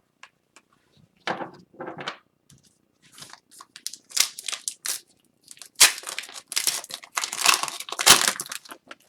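Wrapper of an Upper Deck Series 1 hockey card pack crinkling and tearing as it is opened, with the cards handled. Scattered rustles at first, then denser and louder crinkling in the second half.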